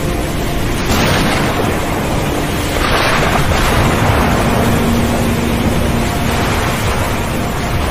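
Sea waves washing and breaking, swelling about a second in and again about three seconds in. Faint held music tones lie underneath.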